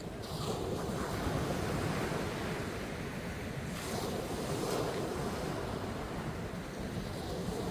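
Sea waves breaking and washing on the shore, the surf swelling about a second in and again around four seconds in.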